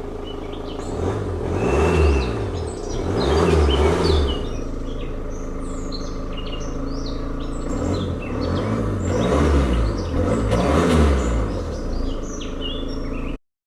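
Audi Q3's 2.0 TDI four-cylinder turbodiesel idling and being revved in short blips, two quick revs and then a few more after a pause, each rising and falling back to idle. Birds chirp in the background, and the sound cuts off suddenly near the end.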